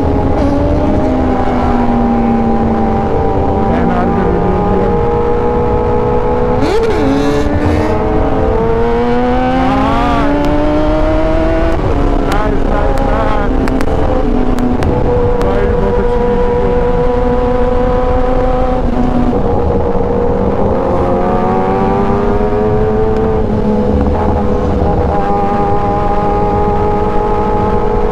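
Kawasaki Ninja ZX-10R's inline-four engine running at speed: its pitch climbs slowly as it pulls and drops back at each upshift, under heavy wind noise. Other superbikes' engines rise and fall across it now and then.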